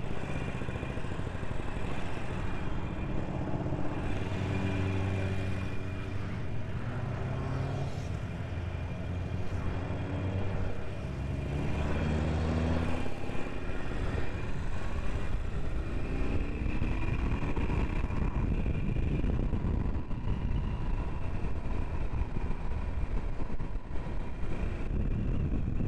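Harley-Davidson Iron 883's air-cooled V-twin pulling away and accelerating through the gears, its note rising and falling in steps. About two-thirds of the way through, wind noise on the microphone at road speed covers it.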